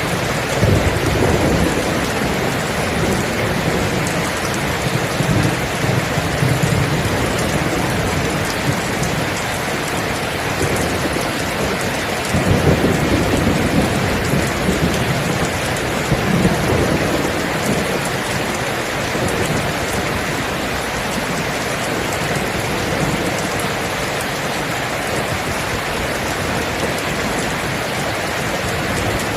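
Steady heavy rain with rolling thunder: low rumbles swell near the start and again about twelve seconds in, then fade into the even hiss of the rain.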